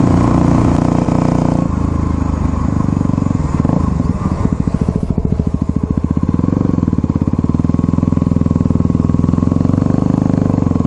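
Single-cylinder engine of a Yamaha WR dirt bike heard from the saddle. It runs at riding revs, drops in pitch about two seconds in as the throttle closes, then runs at low revs with slow, even firing pulses as the bike slows down.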